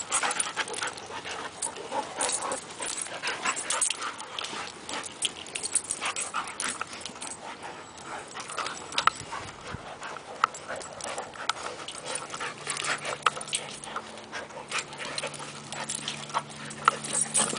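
Two dogs play-fighting, a Rottweiler mix and a long-haired grey dog wrestling and mouthing each other, in a rapid, irregular run of short sharp noises from their jaws and voices. A low steady hum comes in about two-thirds of the way through.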